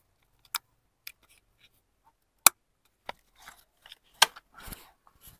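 Handling noise: scattered sharp clicks and knocks, about half a dozen, the loudest about two and a half seconds in, with brief rustling.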